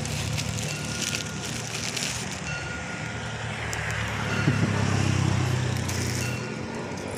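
Road traffic going by: a low engine hum that swells about four seconds in and eases off near the end. During the first two seconds a plastic bag of dry cat food rustles.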